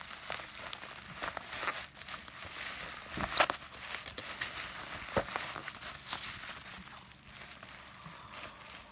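Bubble wrap crinkling and rustling as hands unwrap a box, with scattered sharp crackles, the loudest about three and a half seconds in. It thins out near the end.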